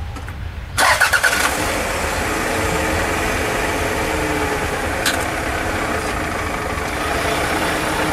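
Toyota Harrier SXU10's engine is started about a second in with a sudden burst, then runs steadily.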